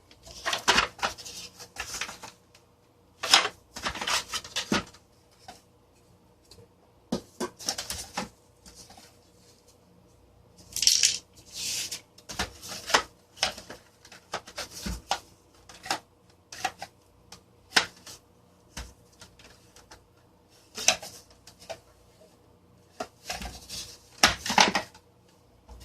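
Plastic parts of a Vornado desk fan housing being handled and taken apart: irregular clicks, taps and short rattles, some in quick clusters.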